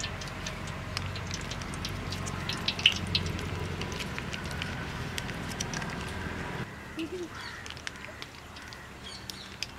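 Ghee squeezed from sachets into a hot iron kadai, giving scattered light crackles and ticks. Under it runs a low rumble that stops suddenly about two-thirds of the way through.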